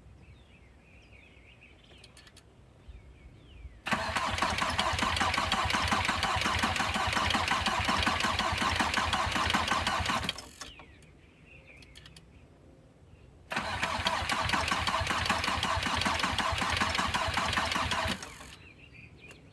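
Rebuilt VW Passat B4 diesel engine cranked over on the starter without firing, in two bursts of about six and five seconds, to bleed air out of the loosened injector lines. The battery is weak.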